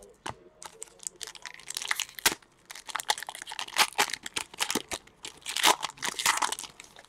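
Crinkling, crackling and tearing of a trading-card pack's foil wrapper as it is handled and opened, with the light snaps of cards being handled.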